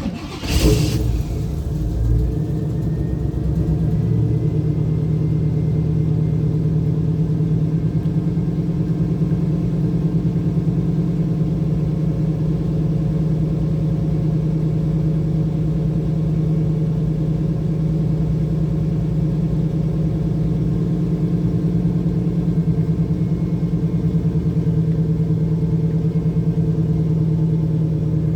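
1986 Camaro IROC-Z V8 engine firing up: it catches suddenly and flares for a second or two, then settles into a steady idle.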